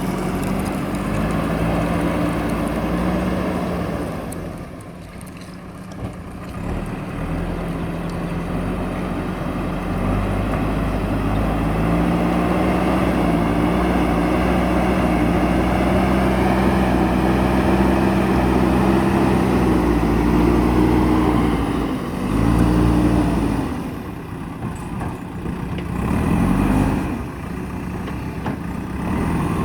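JCB backhoe loader's diesel engine working under load, revving up and down. It drops low about four seconds in, climbs and holds high through the middle, then falls and picks up again twice near the end.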